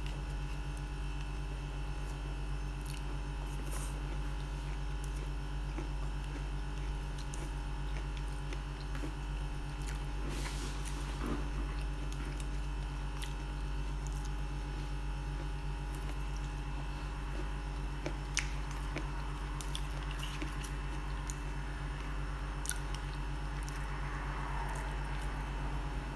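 Wet chewing of canned sweet corn kernels, with occasional light clicks of a metal spoon against the tin can, over a steady low hum.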